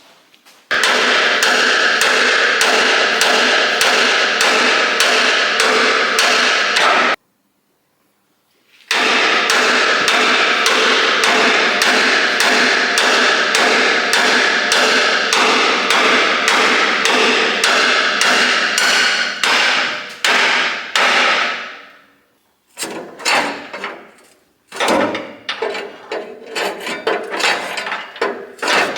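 Hand hammer striking steel boiler tubes in a quick, steady rhythm of about three or four blows a second, each blow ringing metallically, knocking old fire tubes out of a traction engine boiler. The hammering breaks off briefly, resumes, and near the end slows to scattered, irregular knocks.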